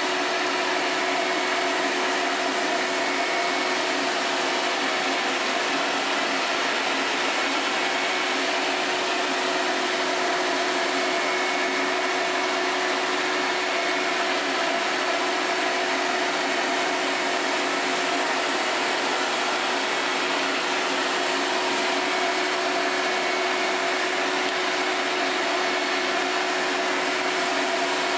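A 6-horsepower, 16-gallon shop-vac running steadily with a constant whine, its 2.5-inch hose sucking up a pile of fine sawdust and sanding dust. The air rush and whine hold even, with no change in pitch or level.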